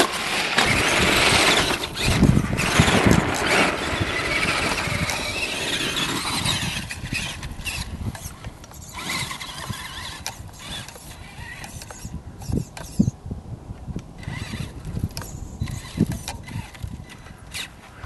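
Traxxas Summit RC truck's electric motor and gearbox whining, the pitch rising and falling as it speeds across ice. After about six seconds it grows fainter as the truck climbs away up a snow bank, with scattered small knocks.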